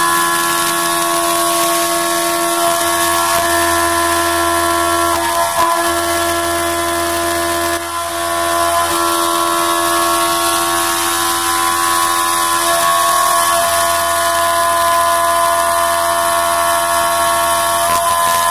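CNC milling machine's end mill cutting an aluminium plate under flood coolant: a steady whine of several tones from the spindle and cutter over a continuous hiss of coolant spray, dipping briefly about eight seconds in.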